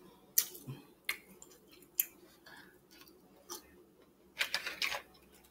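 Close-miked eating sounds of a person chewing seafood: scattered sharp, wet mouth clicks and smacks, a few single ones and then a quick cluster near the end.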